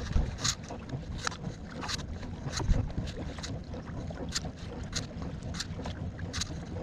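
Wind buffeting the microphone with a steady low rumble on a small boat at sea, and about nine short, sharp ticks a little under a second apart, with a low bump about three seconds in.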